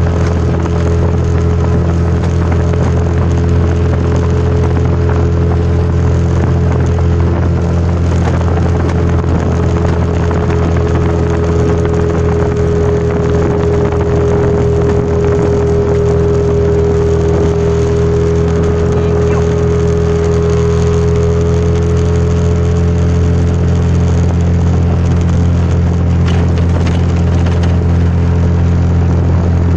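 Speedboat engine running steadily under way, over a constant rushing noise. A higher engine tone swells in the middle and fades away after about twenty seconds.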